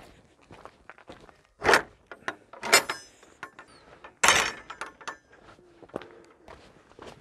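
A wooden field gate being handled and shut, with loud knocks at about two, three and four seconds in. Lighter footsteps on a stony track follow.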